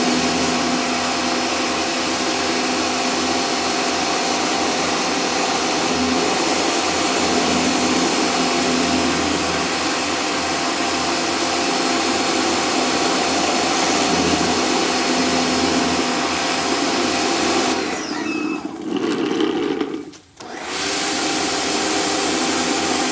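Sun Joe pressure washer running steadily, feeding a 13-inch spinning surface cleaner that sprays onto a concrete driveway. About 18 seconds in the sound drops away and almost stops for a moment, then starts up again.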